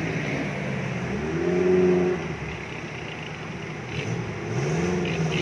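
Off-road 4x4 engine revving hard as it drives through a muddy river, rising and falling about a second and a half in and again near the end, over the steady rush of water.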